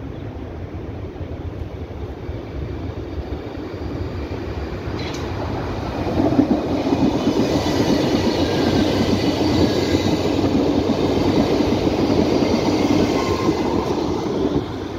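Berlin U-Bahn small-profile train on line U2 approaching and passing close by, its wheels running on the rails, growing louder and loudest from about six seconds in, with a faint high whine above the rolling noise. The sound cuts off just before the end.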